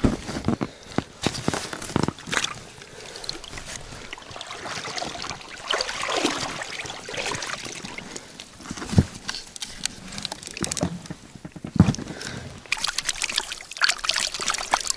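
Water sloshing and trickling around a small inflatable rowing boat, with irregular knocks and bumps, two of them sharper thumps about 9 and 12 seconds in.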